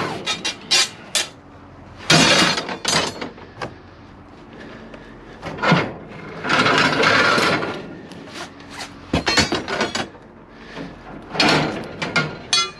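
Rummaging through scrap in a dumpster: irregular knocks, clanks and scraping as pieces of wood and metal are pulled and shifted, with a few louder bursts.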